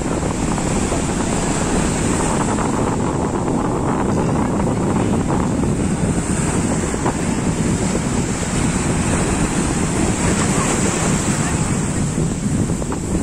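Sea waves breaking and washing up over a sandy beach, a steady rush of surf, with heavy wind buffeting the microphone.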